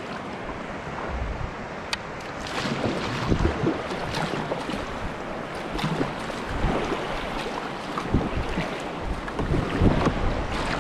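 Paddle strokes splashing and river water rushing around a whitewater kayak's hull as it is paddled through moving current, with irregular splashes and wind buffeting the microphone.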